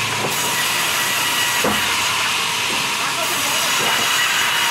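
Large vertical band saw in a sawmill ripping a log slab into boards: a steady noise of the blade through wood, with a faint high whine.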